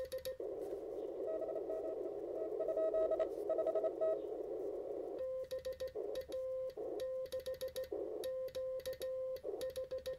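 Morse code on a NorCal 40A 40-metre QRP transceiver. First, a weak keyed CW signal from the other station is heard in the receiver's filtered hiss. About five seconds in, the operator's own sidetone takes over, a clean steady tone keyed in dots and dashes, with the receiver hiss muted between the elements.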